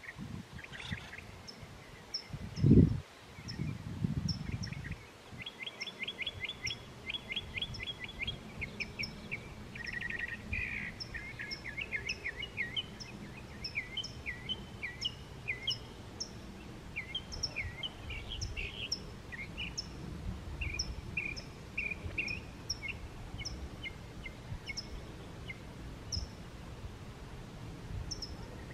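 Small birds chirping and singing: a thin high chirp repeated about twice a second, a rapid trill a few seconds in, then a run of varied chirped notes, over a steady low rumble. A single loud thump comes about three seconds in.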